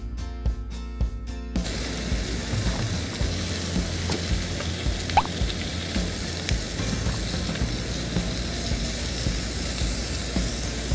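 Music with a beat until about a second and a half in, then samgyeopsal (sliced pork belly) sizzling as it grills, a steady hiss with quieter music underneath.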